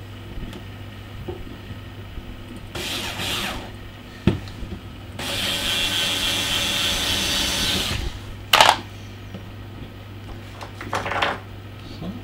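Small cordless screwdriver driving screws into a door cable feed-through: one steady run of about three seconds in the middle, with shorter bursts of handling and a sharp knock before and after.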